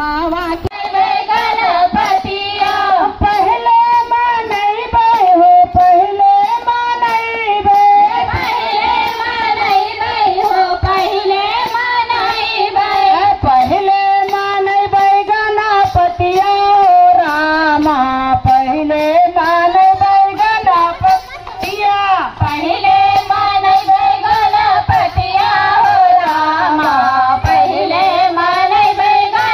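Women singing a Hindi devotional song to Shiva in one continuous sung melody, with hand claps keeping a steady beat.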